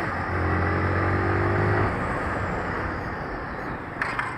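Honda CG 160 Titan's single-cylinder four-stroke engine pulling at steady revs, heard from on the bike with wind noise. About two seconds in the engine note drops away as the throttle closes and the bike coasts, leaving mostly wind and road noise, with a couple of short clicks near the end.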